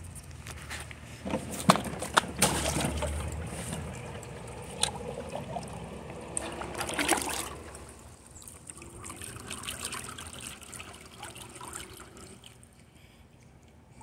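Pool water splashing, sloshing and trickling around a robotic pool cleaner as it is lowered into the pool by hand, with a few sharp knocks early on the louder stretch. The splashing dies down to a quieter trickle in the second half.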